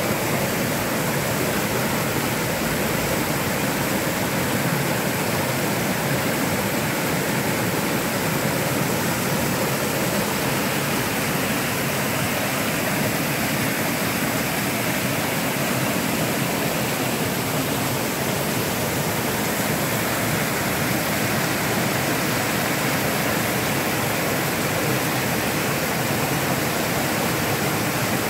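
Small waterfall cascading steadily over rock ledges: a constant, even rush of falling water.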